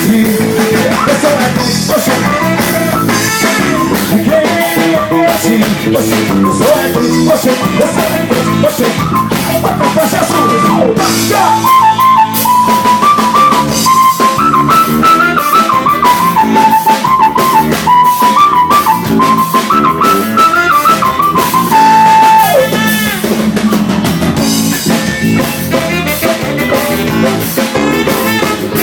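Live band playing an instrumental passage over a steady drum kit beat. From about twelve seconds in a lead melody of held, stepping notes takes over, ending in a downward slide about ten seconds later.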